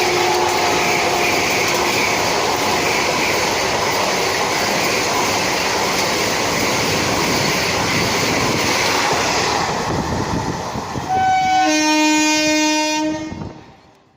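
Vande Bharat Express electric train set passing at speed: its horn, already dropped in pitch as it passes, holds for about a second, then gives way to a steady loud rush of wheels on the track. Near the end the horn sounds again, a brief higher note and then a low chord for about two seconds, before the sound fades and cuts off.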